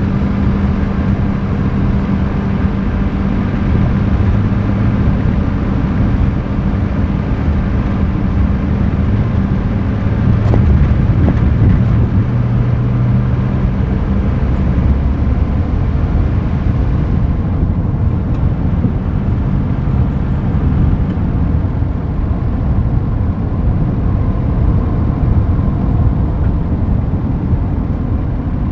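Steady road noise of a moving car heard from a microphone outside it: tyres rolling on asphalt and a low engine hum, which fades about halfway through.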